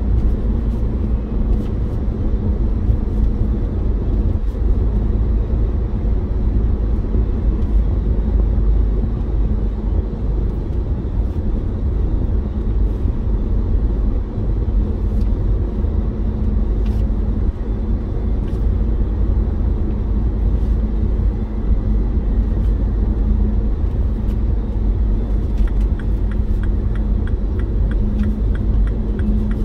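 Car cruising at highway speed, heard from inside the cabin: a steady low rumble of road and engine noise with a low hum.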